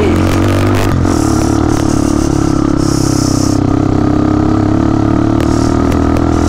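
Motorcycle engine running at a steady pitch while riding, with a few brief hisses over it.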